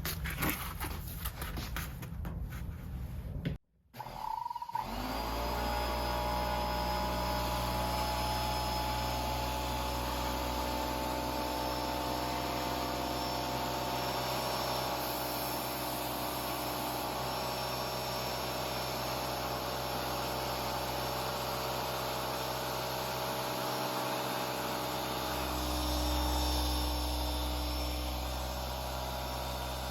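A few seconds of handling noise, then a Husky electric air compressor starts about four seconds in and runs steadily with a low hum and a set of steady whining tones. It is not building pressure, which the owner puts down to an air leak.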